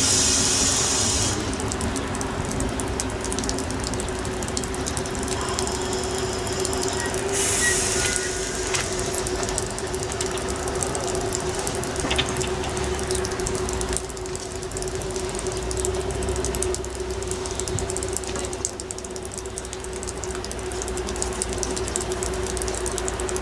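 HŽ 7121-series diesel railcar standing at the platform with its engine running, a steady hum. Two short air hisses sound, one at the start and one about eight seconds in.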